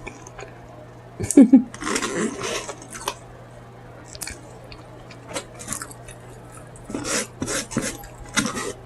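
Close-miked chewing and wet mouth smacking of honey walnut prawns, in irregular clusters: a loud bout about a second and a half in and another near the end, with quieter clicks between, over a faint steady low hum.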